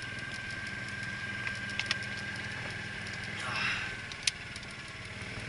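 Golf cart running as it drives along: a steady low hum with a thin high whine that fades out about four seconds in, followed by a single sharp click.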